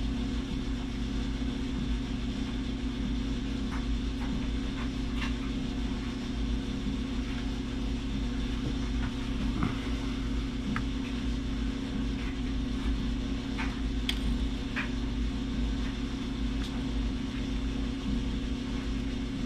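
Steady low machine hum made of several even tones, with a few faint small clicks scattered through it.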